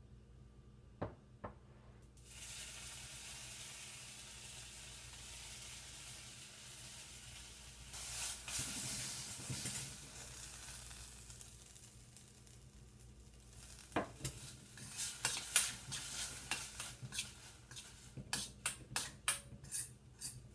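Two small clicks, then a steady hiss for about ten seconds. From about two-thirds of the way in, a spoon clinks and scrapes rapidly against a bowl, stirring mango pulp into desiccated coconut for a sweet filling.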